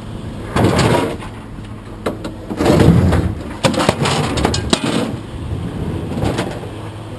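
Several bursts of knocks and clatter, the loudest about three seconds in, over a steady low hum.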